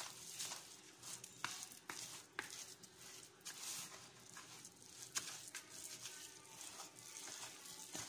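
Hand whisk stirring thick, floury chocolate cake batter in a plastic bowl: faint, irregular scraping and tapping strokes against the bowl.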